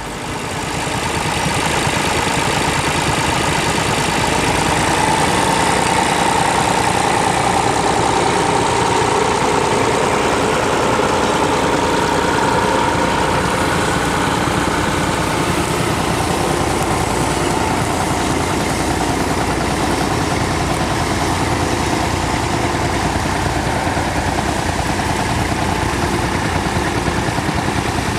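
Massey Ferguson 35X tractor engine running steadily at an even speed.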